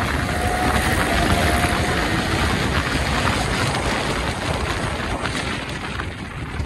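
Sport motorcycle running at speed, with heavy wind rush on the microphone. A faint engine whine rises a little over the first two seconds, and the noise eases toward the end as the bike slows.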